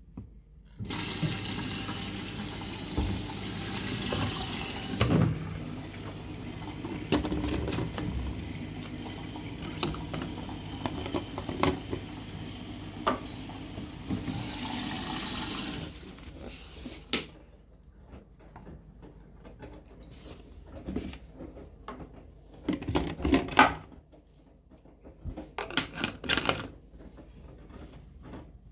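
Liquid fabric softener being poured from a plastic bottle into a washing machine's dispenser drawer, a steady pour of about fifteen seconds. It is followed by scattered knocks and short rattles of the bottle and drawer being handled.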